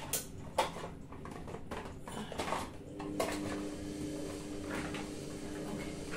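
Clicks, knocks and clatter of a stiff medicine bottle cap being worked at, with the bottle and its cardboard box handled and knocked on the counter. A faint steady hum comes in about three seconds in.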